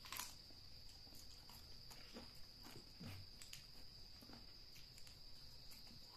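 Faint close-up mouth sounds of eating chicken feet by hand: irregular small clicks, smacks and crunches. A steady high-pitched tone runs underneath.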